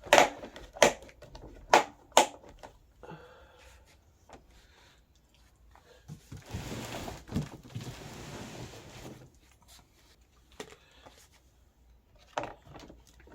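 Plastic hubcap being pressed and knocked onto a ride-on quad's plastic wheel: four sharp clicks in the first two seconds or so, a rustling scrape a few seconds later, and one more click near the end.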